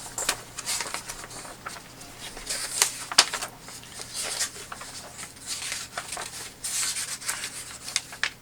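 Paper instruction booklet being leafed through: irregular rustling and crinkling of pages, with a few sharper flicks.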